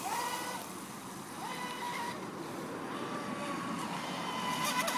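Electric RC speedboat's motor whining steadily as the boat runs across the water, the pitch rising several times as the throttle is opened.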